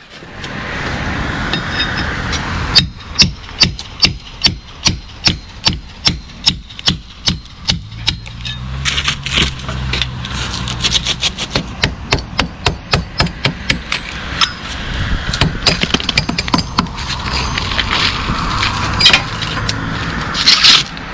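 Hammer blows knocking the old rusted angle-iron lintel loose from the brickwork. From about three seconds in come loud, even strikes about two a second; from about eight seconds they turn into quicker, lighter knocks over a scraping hiss.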